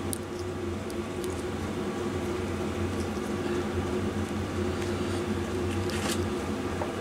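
Steady electrical hum of a fan-like machine running, with a few faint light clicks and taps scattered through, twice close together near the end.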